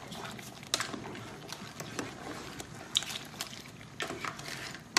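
Wooden spatula stirring crabs, shrimp and corn in a pan, with irregular knocks and clicks of shells and spatula against the pan. The sharpest knocks come about a second in and near three seconds.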